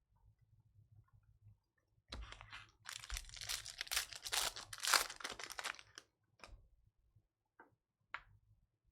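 Trading-card pack wrapper being torn open and crinkled, starting about two seconds in and lasting about four seconds. A few light taps follow as the cards are handled.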